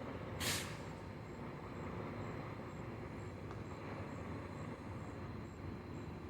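Outdoor night ambience: a steady low rumble, with a faint high-pitched insect chirp repeating about twice a second. A brief hiss comes about half a second in.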